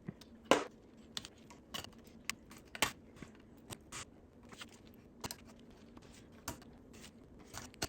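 Scattered small clicks and taps, irregularly spaced, of hand tools and a metal hose fitting being handled; the sharpest comes about half a second in.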